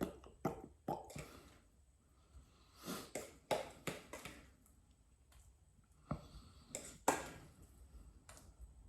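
Faint, scattered clicks and short knocks from food containers and utensils being handled, with quiet stretches between.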